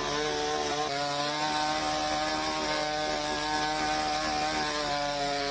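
An engine running steadily at high revs, a mechanical drone whose pitch shifts slightly about a second in, from machinery clearing fallen trees and landslide debris.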